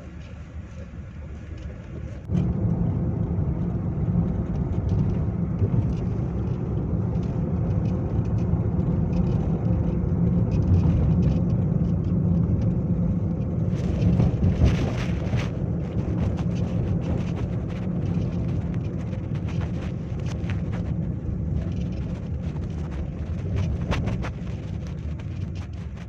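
Storm wind buffeting the phone's microphone, a steady low rumble that jumps louder about two seconds in, with a few crackles around the middle.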